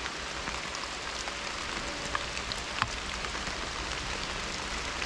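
Steady rain falling in woodland, with scattered sharp drops ticking, the loudest a little under three seconds in.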